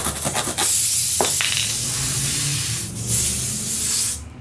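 Pressurised air hissing out of a punctured, inflated car tire through the nail hole around a tire-plug insertion tool. The hiss dips briefly near three seconds in and cuts off about four seconds in. A few quick rubbing clicks come just before the hiss starts.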